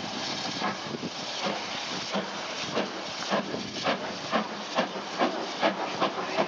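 BR Standard 2-6-4T steam tank locomotive working under steam, its exhaust beats coming quicker as it gathers speed, from under two a second to between two and three a second, over a steady hiss of steam.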